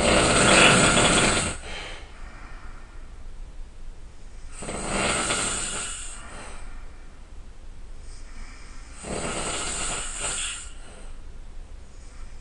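A person snoring loudly, three snores about four and a half seconds apart, each lasting about a second and a half, with a faint steady low hum underneath.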